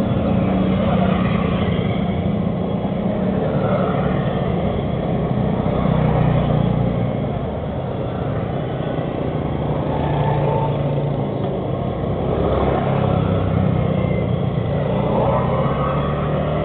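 Motorbike engines running as they ride past along a street, one after another, their hum rising and falling in pitch.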